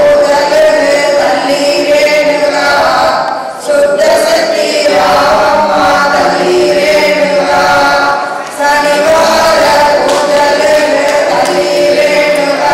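A group singing a devotional song together, led by a man singing into a microphone, in long held phrases with a short break for breath about every five seconds.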